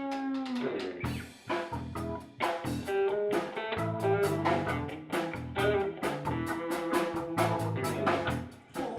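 Blues band playing an instrumental passage: a held note slides down and stops about half a second in, then guitar and bass lines run over a steady drum-kit beat.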